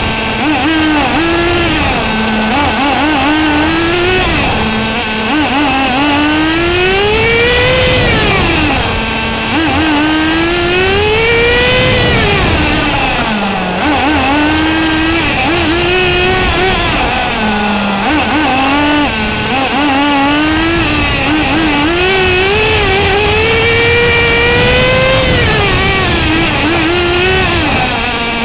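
Small nitro engine of a Bycmo radio-control car, heard close up from on board as the car laps a circuit. The engine revs up and down over and over, its whine climbing high on the straights and dropping sharply as the car slows for corners, about half a dozen times.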